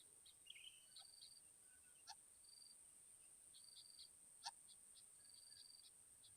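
Faint insect ambience: a steady high-pitched drone with short, high chirps repeating in little runs, and a few soft clicks, the loudest about four and a half seconds in.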